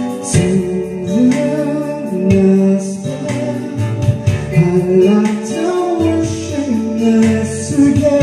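Karaoke music playing from a Platinum Kapitan 2 DVD karaoke player, with a melody line over a steady bass accompaniment.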